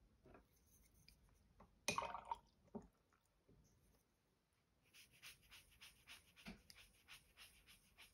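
Paintbrush brushing over a soft pastel swatch on sketchbook paper, blending it, in a run of quick even strokes about three a second that starts about five seconds in. About two seconds in there is a short clatter.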